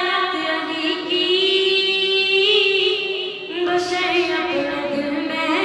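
A boy singing a manqabat, an Urdu devotional song, into a microphone, holding long notes with vibrato. The melody steps down in pitch in the second half.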